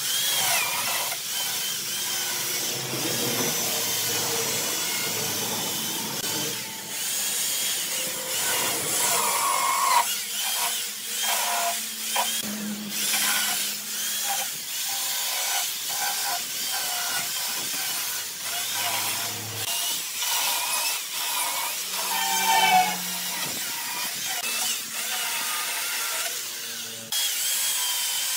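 Corded electric chainsaw cutting into a hardwood stump, its motor whine shifting in pitch as the chain bites and eases off, with short dips between cuts.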